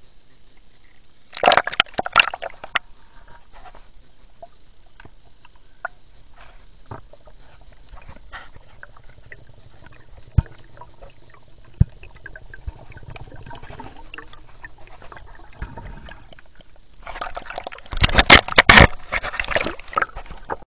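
Water sloshing and splashing around a camera held underwater in a swimming pool, with scattered knocks as it is handled. Loud splashing bursts come about a second and a half in and again near the end.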